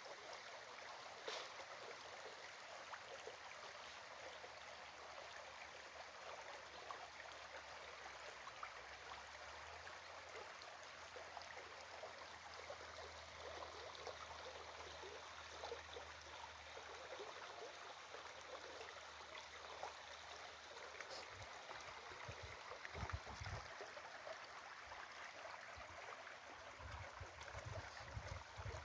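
A small stream running steadily, a soft even rush of water. There are a few low thumps in the last several seconds.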